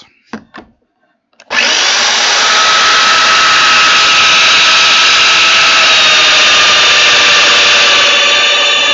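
Festool Domino DF 700 joiner's motor switched on after a couple of short clicks, starting about one and a half seconds in and running steadily. On a heavy-duty power cable it keeps running; the lightweight cable could not carry the current and made it cut out.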